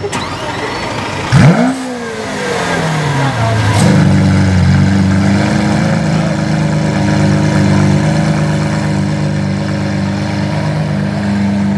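Lamborghini Aventador's 6.5-litre V12, on a loud aftermarket exhaust, starting up. It catches with a loud flare of revs about a second and a half in, then the revs fall over about two seconds into a steady idle.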